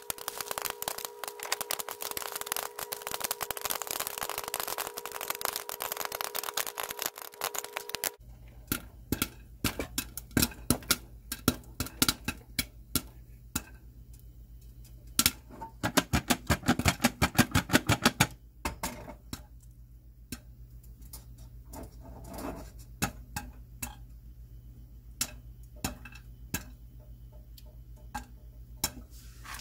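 Popcorn kernels popping inside a lidded saucepan on the stove. For the first eight seconds the popping is sped up into a dense rattle over a steady tone. Then come single pops at normal speed over a low hum: they thicken into a rapid flurry about halfway through and thin to occasional pops near the end, as the popping nears its finish.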